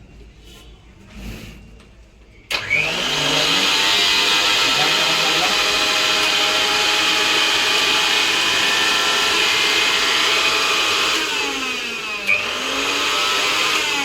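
Electric grinder motor switched on about two and a half seconds in, whining up to full speed and running steadily, on a test run after its power cable was replaced. Near the end it is switched off and winds down, switched on again and spins back up, then winds down once more.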